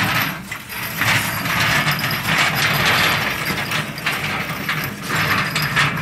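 Continuous rapid metallic clicking of a hand-worked lifting rig being operated to move the telescope's mirror cell.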